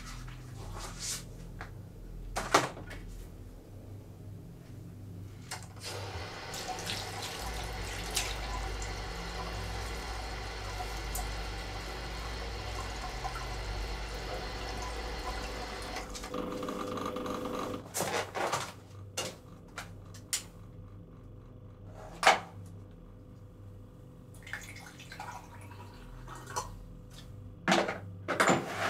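Kitchen tap running into a stainless steel sink for about ten seconds. Scattered knocks and clinks come before and after it.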